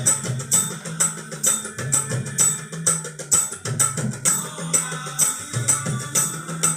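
Instrumental stretch of a 1980s film song played back through a surround-sound amplifier and speakers: a steady tabla beat over held bass notes.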